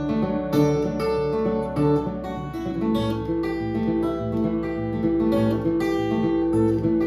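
Acoustic guitar strummed in a steady rhythm, playing an instrumental passage between sung sections.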